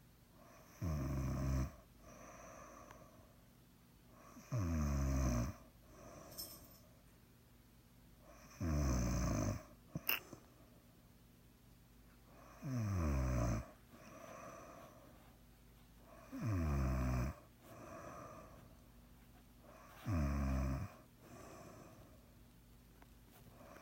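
Snoring in sleep: loud snores about every four seconds, each falling in pitch, with a quieter breath between them. One brief sharp click comes about ten seconds in.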